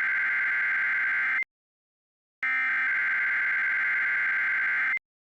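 Emergency alert attention tone: a loud, steady, high electronic tone sounding in long blasts of about two and a half seconds. A blast ends about one and a half seconds in, the next starts after a silent gap of about a second, and it cuts off again just before the end.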